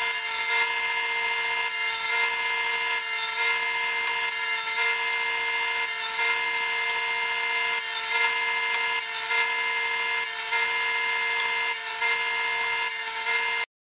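Table saw running and crosscutting a wide hardwood board on a crosscut sled: a steady whine with cutting noise that swells about every second and a half, cutting off abruptly near the end.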